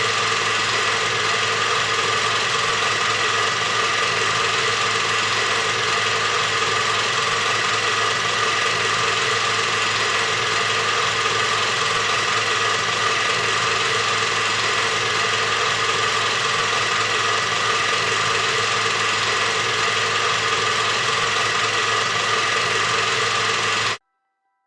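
A steady mechanical drone, a hum with several held tones over a constant hiss, that cuts off abruptly near the end.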